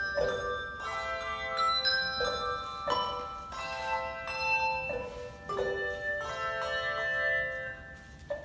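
A handbell choir playing: bells struck in notes and chords every half second or so, each ringing on and overlapping the next. It thins out near the end.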